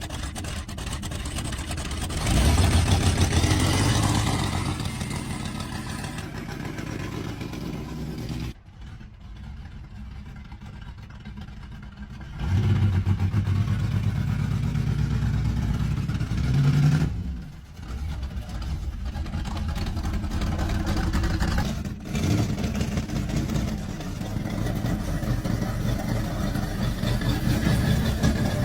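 1978 Pontiac Firebird's engine running, revved up a few times with brief rises in pitch and loudness. Its sound drops back in level around two points that look like cuts in the recording.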